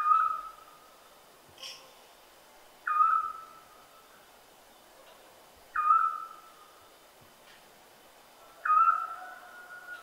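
An owl calling: four single whistled hoots about three seconds apart, each starting with a quick slide down into a steady note that fades away.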